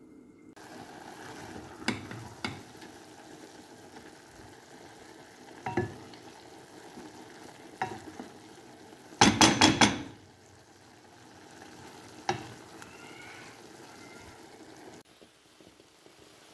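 Spoon stirring quinoa and vegetables in a non-stick pot over a steady low sizzle, knocking against the pot now and then. The loudest sound is a quick run of knocks about nine seconds in.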